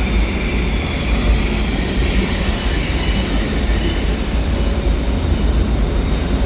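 Train wheels squealing on the rails: several steady high-pitched tones over the low rumble of a rolling train, the squeal easing in the second half.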